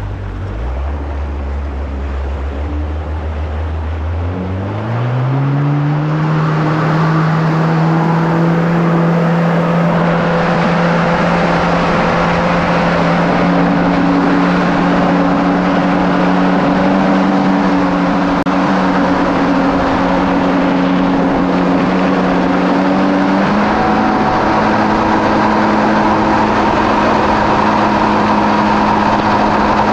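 Kawasaki SX-R 1500 stand-up jet ski's four-cylinder engine revving up hard about five seconds in, then running steadily at speed, with a small further rise in pitch later on. A steady rush of water and air runs under it.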